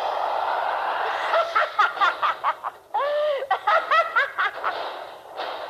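A person laughing in repeated short, high-pitched bursts, after a steady rushing noise in the first second or so.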